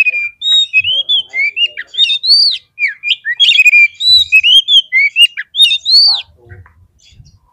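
Oriental magpie-robin singing a loud, fast string of varied whistled notes that sweep up and down, the agitated 'fighter' song used to provoke other magpie-robins. The song stops about six seconds in.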